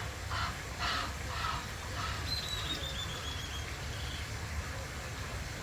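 Masked weaver calling: a few short chirps, then a rapid chattering run of notes falling slightly in pitch, over a low steady rumble.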